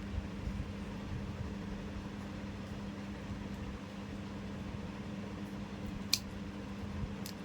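Steady low hum over a faint rumble, with two short light clicks near the end.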